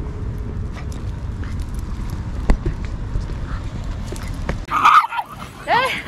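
Low wind rumble and scattered crunches from walking on a gravel path. After about four and a half seconds, Shiba Inu dogs start sparring, with short yaps and growls.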